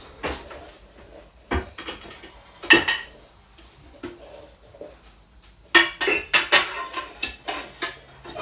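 Dishes and cutlery clinking and clattering as they are handled and put away, in scattered knocks with a quicker run of clatters about six seconds in.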